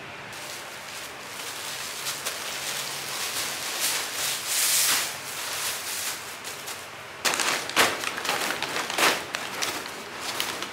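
Brown kraft paper packing filler crinkling and crackling as it is handled, rolled up and crumpled by hand, in irregular bursts that are loudest near the end.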